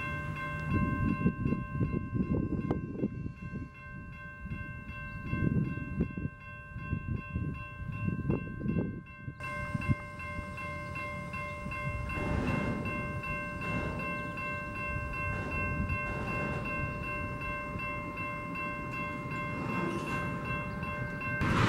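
Union Pacific freight train running by: a low, uneven rumble that swells and fades, with a steady high-pitched ringing whine over it.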